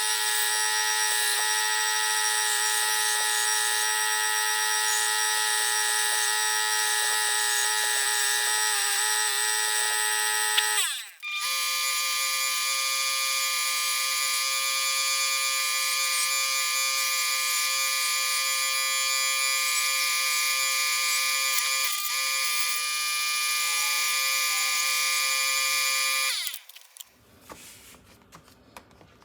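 Power tool spinning a wire wheel, whining steadily as it brushes grime off the edges of metal tins. It stops briefly about 11 seconds in, runs again at a slightly higher pitch, and stops near the end.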